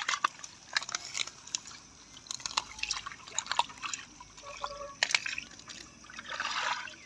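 Hands groping through shallow muddy water and mud: irregular small splashes, drips and wet squelches, with a busier patch of splashing near the end.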